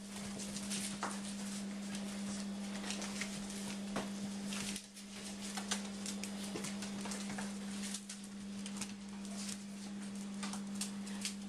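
A puppy's claws clicking and pattering on a tile floor as it scampers about, over a steady hum.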